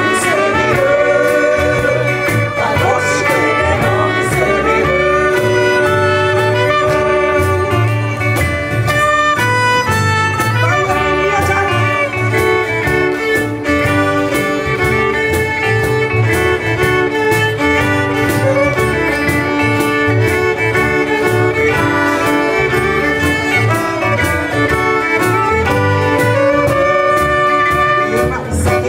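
Live band playing an instrumental passage of a pop song: held melody notes over a steady bass and drum groove, with no singing.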